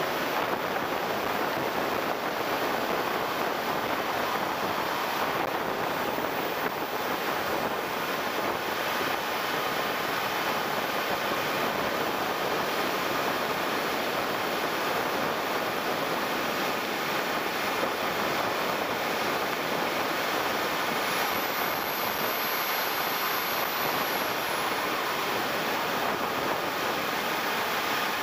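Steady rushing of airflow over a camera riding on a radio-controlled jet in flight, with the model's JetCat 160SE turbine running. A faint high whine rises and then falls about three-quarters of the way through.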